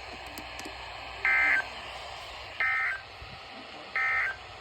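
NOAA Weather Radio end-of-message (EOM) signal: three short, identical bursts of digital SAME data tones about a second and a half apart, over steady radio hiss, marking the end of the warning broadcast.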